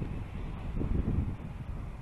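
Wind buffeting the camera's microphone: irregular low rumbling gusts.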